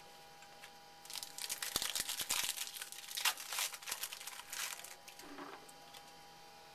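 Crinkly rustling and small clicks of trading cards and their packaging being handled, from about a second in until about five seconds in.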